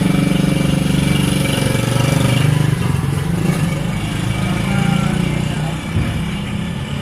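Motorcycle engine running steadily at idle.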